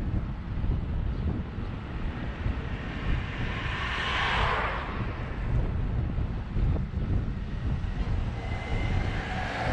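Sea waves washing in on a beach, each surge of hiss swelling and fading about every six seconds, over a steady low rumble of wind on the microphone.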